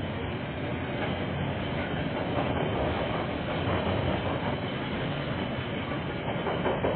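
Freight train's container wagons rolling past: a steady rumble of steel wheels on rail with some clacks at the rail joints, heard through a security camera's microphone.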